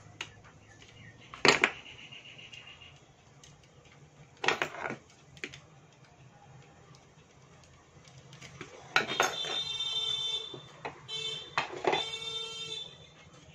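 A few sharp clicks and knocks as a car stereo's front-panel circuit board is handled with pliers and fitted into its plastic frame. About nine seconds in, a ringing electronic tone like a phone ringtone or alarm starts, pauses briefly, and stops near the end.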